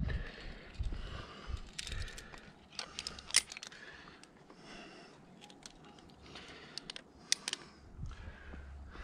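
Metal climbing hardware (carabiners and quickdraws) clinking in short, sharp clicks: a cluster about two to three seconds in and another near the end.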